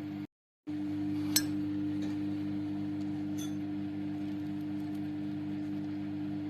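Microwave oven running with a steady hum. The sound drops out briefly near the start, and there is a light click about one and a half seconds in.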